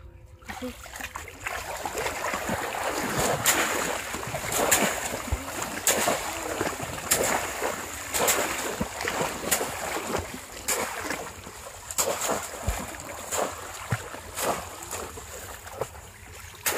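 Splashing and sloshing in shallow floodwater as legs wade through it and bamboo polo fish traps are plunged in, with a sharp splash about once a second.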